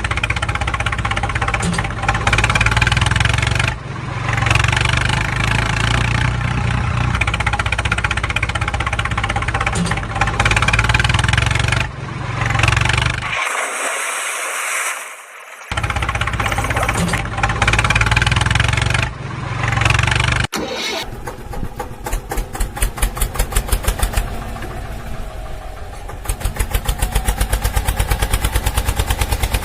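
Heavy engine starting and running in several abruptly cut segments, then turning into a rapid, even pulsing chatter about two-thirds of the way through.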